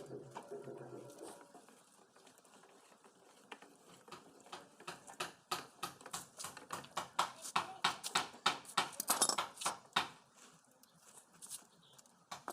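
A quick, even run of sharp knocks, about four a second. They start about four seconds in, are loudest in the middle and stop about ten seconds in.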